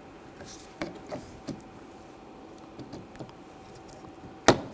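Plastic door trim piece being handled and lined up against a car door: light plastic clicks and taps, then one sharp click near the end.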